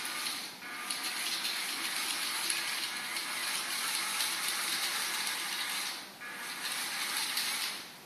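WowWee Rovio robot's drive motors and gears whirring as it drives on its omni-wheels. The whirr pauses briefly about half a second in and again near six seconds, then stops just before the end as the robot halts by the ball.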